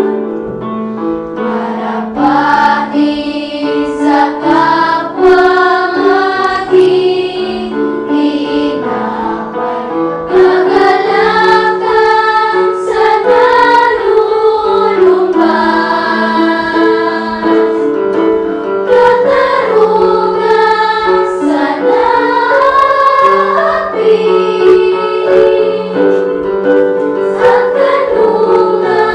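A small choir of children and young women singing a hymn together, accompanied by an electronic keyboard.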